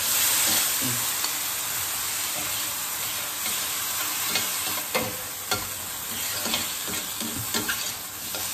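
Shredded boiled chicken dropped into hot red chili sauce in a stainless steel skillet, setting off a sizzle that flares at once and slowly eases. Scrapes and clicks of stirring in the pan grow more frequent in the second half.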